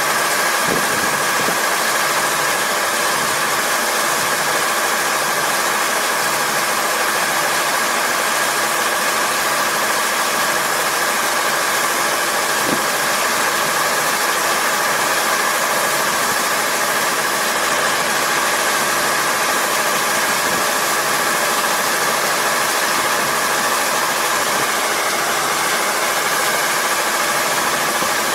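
Rice combine harvester running steadily while it unloads grain through its auger into a truck: a constant mechanical drone of engine and running machinery, with steady hum tones and no change in speed.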